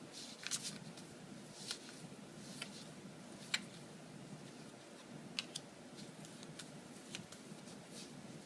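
Yu-Gi-Oh! trading cards being handled: scattered light flicks and taps as cards are slid and sorted, about one or two a second, over a faint steady room hum.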